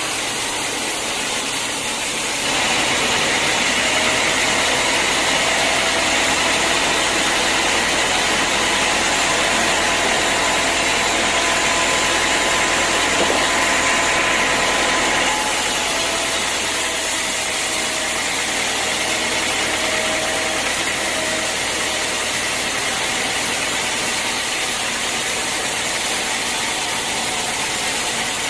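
Sawmill machinery running steadily. It gets louder and brighter from about two and a half seconds in, with a faint whine, then drops back to the earlier level about fifteen seconds in.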